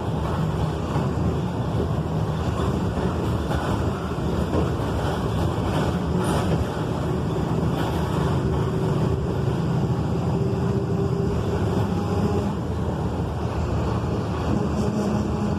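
Volkswagen 17.230 truck's diesel engine running steadily, with a rushing wind-like noise over it.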